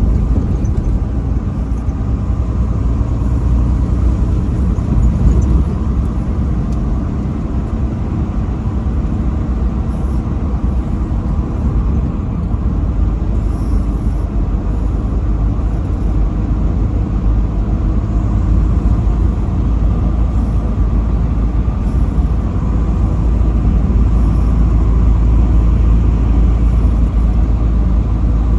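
Truck driving on the highway: a steady low engine and road rumble that holds even throughout, with no horn.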